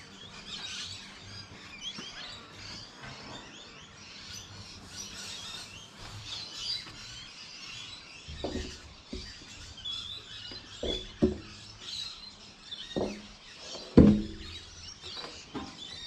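Small birds chirping throughout. From about halfway, a series of sharp knocks and clunks with a short ring as a heavy metal outboard pod is manoeuvred against the back of a boat hull, the loudest knock near the end.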